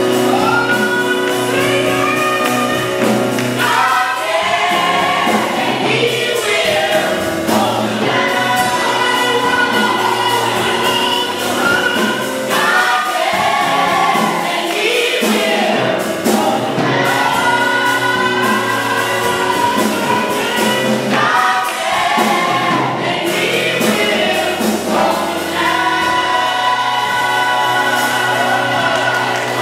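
Gospel choir of mixed women's and men's voices singing together, with instrumental accompaniment sustaining low notes underneath.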